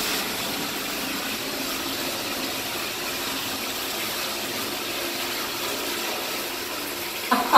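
Bathtub tap running, a steady rush of water pouring into the filled tub.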